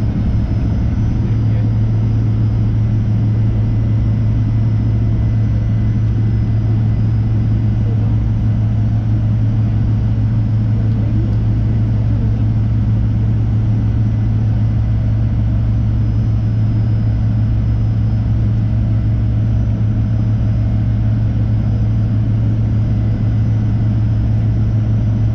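Steady cabin drone of a Fokker 100 on the ground, its rear-mounted Rolls-Royce Tay turbofans idling, heard from inside the passenger cabin: a deep, even hum with a faint steady whine above it.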